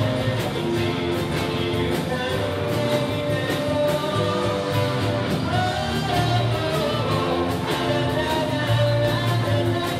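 Live band playing a Japanese pop song: a lead vocalist singing over electric bass, keyboard, drum kit and guitars, with a steady beat.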